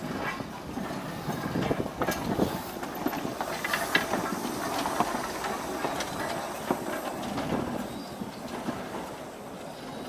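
Isle of Man Steam Railway train running on its 3 ft narrow-gauge line: a steady running noise with irregular clatters and knocks from the wheels on the track.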